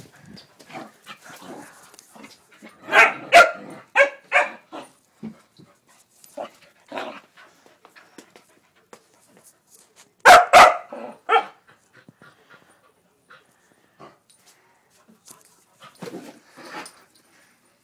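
A puppy barking in play: a quick run of about five sharp barks a few seconds in, and another run of three or four about ten seconds in.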